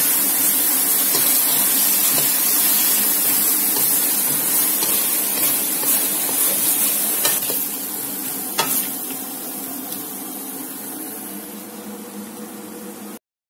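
Chicken and bok choy sizzling in an oiled pan as a spatula stirs them, with a couple of sharp knocks around seven and eight and a half seconds in. The sizzle slowly dies down, then cuts off suddenly near the end.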